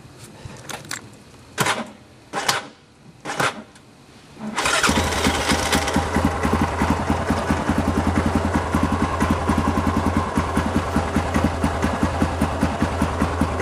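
A few short knocks, then an ATV (four-wheeler) engine starts about four and a half seconds in and settles into a steady, evenly pulsing idle.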